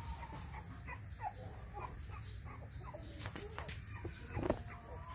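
Scattered short, faint animal calls: little squeaks and chirps at irregular intervals, with a few sharp clicks, the loudest about four and a half seconds in.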